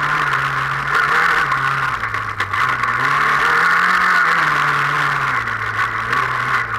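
Off-road racing car's engine heard from inside the caged cabin at speed, its revs climbing and dropping in steps as it goes through the gears, under a loud steady rushing noise.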